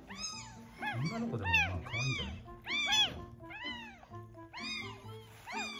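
Newborn kitten of about 85 g crying over and over while being syringe-fed milk: quick, high-pitched mews that rise and fall, two or three a second, with short breaks. It is so desperate for milk that it screams as it drinks. Soft background music with held low notes plays underneath.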